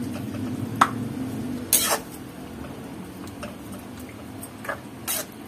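Water poured from a cup into a wok of simmering chicken and tomato sauce, splashing for about two seconds. A metal spatula then stirs and knocks sharply against the wok a few times, loudest just before the pouring stops.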